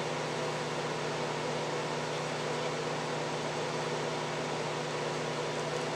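A small electric fan running steadily, giving an even hiss over a constant low hum.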